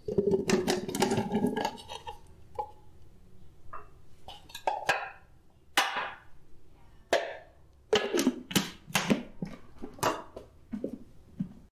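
Clatter and sharp knocks of a plastic blender jar being handled: a dense rattle in the first two seconds as carrot pieces go into the jar, then separate knocks and clicks as the jar is lifted and fitted onto its base. The blender motor is not running.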